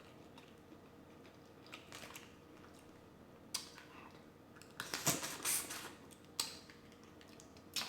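Crackles and clicks of shellfish being handled and peeled, a few at a time, with a dense cluster of louder crunches about five seconds in.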